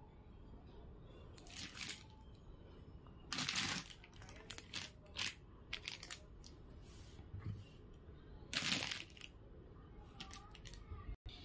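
Crinkling and rustling of packaging being handled, in a few short bursts, with light clicks in between.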